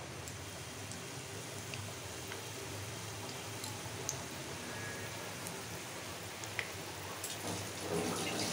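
Battered potato slices deep-frying in oil in a kadai: a steady sizzle with scattered small pops, the pops coming a little more often near the end.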